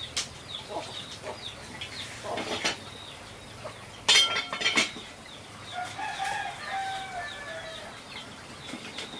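Chickens clucking and calling, with a loud rough squawk about four seconds in and a long drawn-out rooster crow starting about six seconds in.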